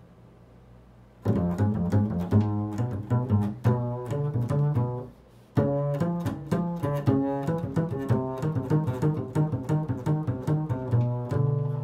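Upright double bass played pizzicato in an improvised line: a quick run of plucked notes starts about a second in. After a short break midway the plucked notes resume and end on a longer ringing low note.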